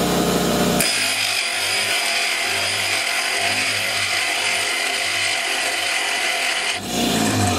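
A 1/3 hp bench grinder with a 60-grit diamond wheel grinding a steel plate held hard against the wheel: a steady hissing grind over the motor's running hum. The sound changes abruptly to a higher, hissier grind about a second in and shifts back near the end.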